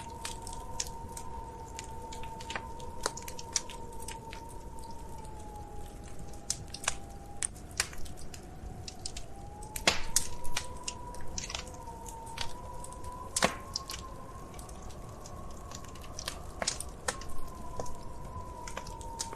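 Wood fire crackling, with irregular sharp snaps and pops over a steady low rumble; the loudest snaps come about ten seconds in and again a few seconds later. A faint, slowly wavering high tone hums underneath.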